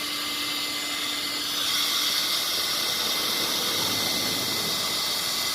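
Electric drill running steadily as it bores a hole through a car bumper for a quick-release bumper clip. About a second and a half in, the sound grows louder and hissier as the bit cuts.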